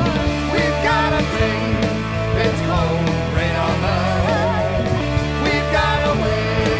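Rock music: a sung lead vocal over electric guitars and a full band.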